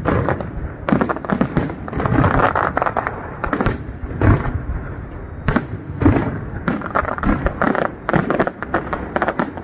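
Aerial firework shells bursting in quick succession: a dense, irregular run of bangs with crackling between them.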